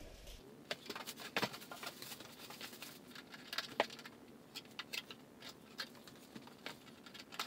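Faint, scattered crinkles and light clicks of plastic wrap and blue packing tape being pulled off a stainless steel range hood.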